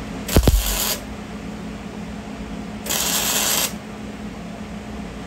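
Two short bursts of stick-welding arc crackle as tack welds are laid on steel: the first starts with a low thump about half a second in and lasts about half a second, and the second comes around three seconds in and lasts under a second. A steady hum runs under both.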